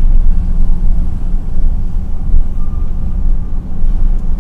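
Steady low rumble of an idling engine, with a constant low hum running under it.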